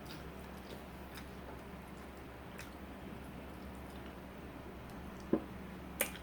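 Quiet eating sounds: faint chewing with scattered small clicks, and two sharper clicks about five and six seconds in, over a faint steady hum.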